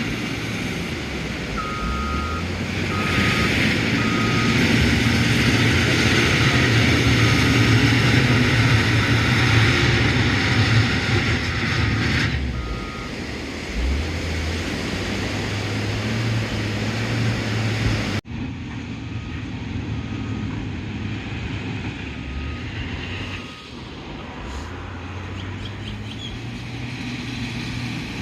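Bulldozer's diesel engine running, working harder and louder for several seconds before easing back, with its backup alarm sounding repeated short beeps while it reverses. The sound drops out abruptly about two-thirds of the way through, then the engine and beeping carry on.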